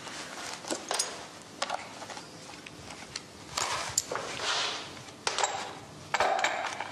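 A sheet of celluloid being handled on a workbench: light clicks and taps, with short rustling scrapes that come more often and louder in the second half.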